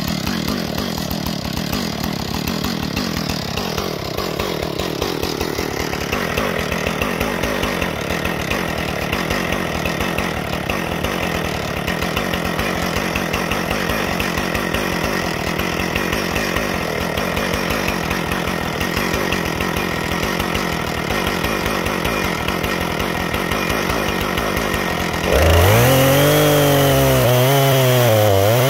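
Husqvarna 460 Rancher two-stroke chainsaw, mounted in an Alaskan chainsaw mill, running at idle. About 25 s in it throttles up to full revs and starts ripping into a cedar log, its pitch sagging and recovering under the load of the cut.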